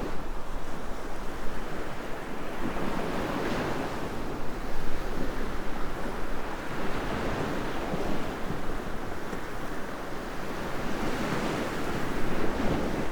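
Ocean waves breaking on the beach: a steady surf wash that swells and eases every few seconds, with wind rumbling on the microphone.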